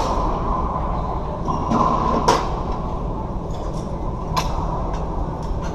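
Racquetball play: a few sharp cracks of the ball off racquet and walls, ringing in the enclosed court, the loudest about two seconds in, over a steady low rumble.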